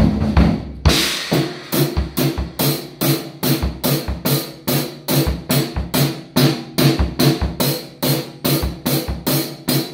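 Drum kit played in a steady beat of about three strokes a second, starting with a loud cymbal crash about a second in. Pitched music with bass runs underneath the drums.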